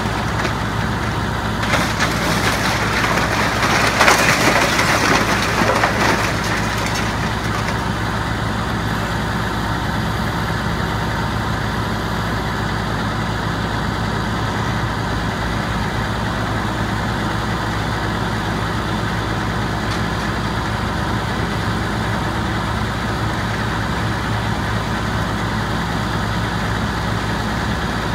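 Hitachi high-reach demolition excavator's diesel engine running steadily, with debris crunching and crashing as its grapple tears into the building from about two to six seconds in.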